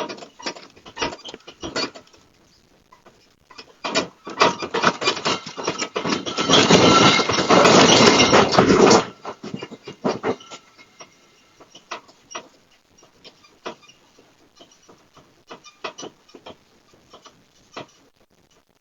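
Rattling and clattering, as of objects and a building shaken in an earthquake, building up about four seconds in, loudest for about five seconds, then cutting off sharply. Scattered knocks and clicks follow.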